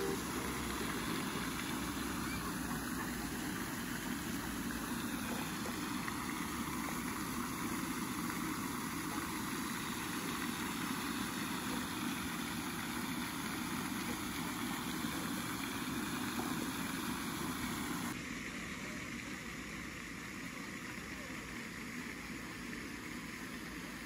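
Steady splashing of a pond fountain's spray, an even noise with no rhythm, that drops slightly in level about 18 seconds in.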